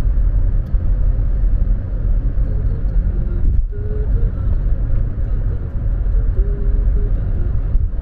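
Steady low road and engine rumble heard from inside a car's cabin while cruising at highway speed.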